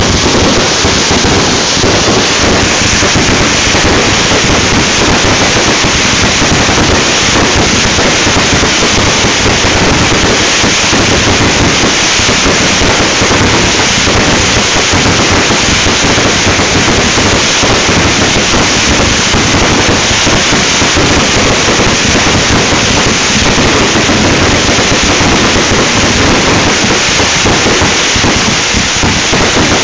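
Aerial fireworks going off in a dense, continuous barrage: rapid bangs and crackling run together into one loud, unbroken noise with no pauses.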